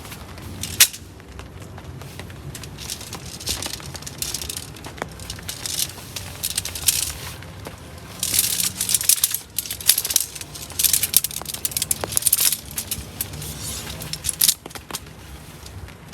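Irregular bursts of rustling and crackling with sharp clicks and one loud snap about a second in, like something being handled or trodden on.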